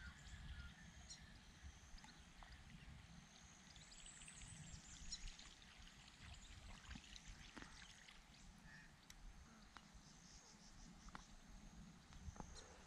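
Near silence: faint outdoor background with a low rumble, a few faint high chirps and scattered small ticks.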